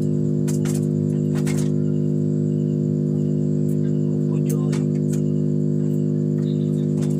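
Steady, loud electrical hum made of a stack of even tones, from a hot-air rework station blowing on the phone being worked on. A few light clicks from the phone being handled, about half a second in, around a second and a half in and near five seconds.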